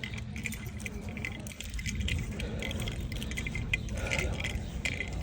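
Low wind rumble on the microphone outdoors, with scattered light clicks and rattles.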